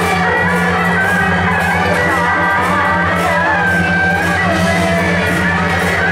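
Loud procession music: a wavering high melody over a steady low drone, unbroken throughout.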